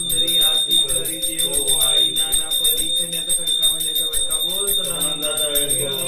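A puja hand bell rung rapidly and without pause, several strikes a second with a steady high ring, over voices singing a devotional aarti.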